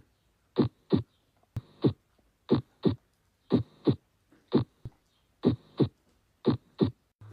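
A heart-sound recording of a heartbeat at about one beat a second, each beat a pair of short thuds (the first and second heart sounds, 'lub-dub') about a third of a second apart.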